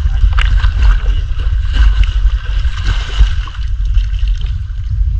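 Shallow stream water splashing and gurgling as people wade through it to drive fish into a net, over a heavy low rumble on the microphone.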